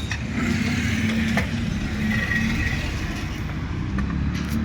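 TVS Ntorq 125 scooter's single-cylinder engine running steadily, its one-way starter clutch nut freshly tightened so that the clutch noise is gone.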